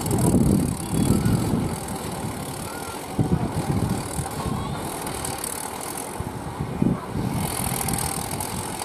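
HMT 3511 tractor's diesel engine running under load in uneven surges while the tractor, pulling a loaded trolley, is stuck in rubble with its rear tyre slipping.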